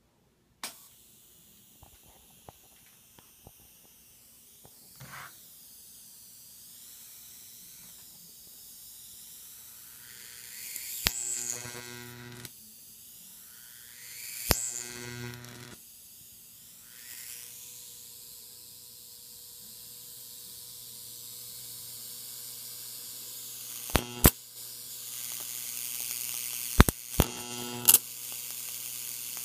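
Homemade flyback-transformer high-voltage ion thruster running: a steady electrical hum under a high hiss from the ionizing electrode that grows louder in the second half. Sharp buzzing snaps of high-voltage arcs break in about 11 and 14 seconds in, then several more in quick succession near the end.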